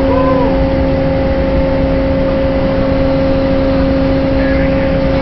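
Steady drone of a ship's engine and deck machinery, with constant hums under a broad noise. A short rising-and-falling tone sounds just after the start.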